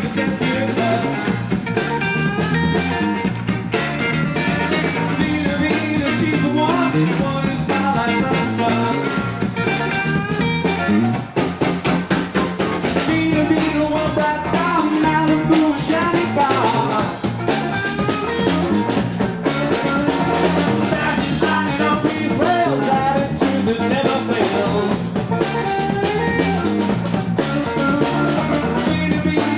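Live blues-rock band playing: drum kit and electric bass, with a male lead singer singing over them.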